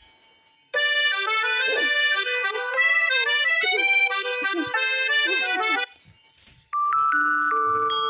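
Huawei P60 ringtone: a melody of many quick notes that plays for about five seconds and stops. After a short pause the next ringtone begins with held, chime-like tones near the end.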